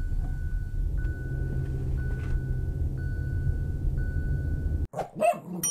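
Dashcam recording of a car on the road: a steady low rumble of engine and tyres, with a faint high tone repeating about once a second. About five seconds in it cuts off abruptly, and a short run of dings and clangs begins.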